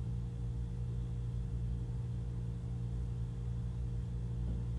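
Steady low electrical hum with a faint hiss underneath, unchanging throughout: the background noise of the recording setup with no one speaking.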